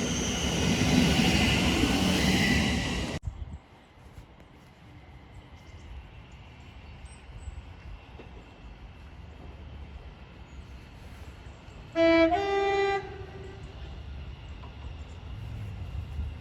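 A train passing at speed, a loud rushing noise that cuts off suddenly about three seconds in. After a quieter stretch, a train horn sounds about twelve seconds in: two short notes, the second a little higher, lasting about a second in all.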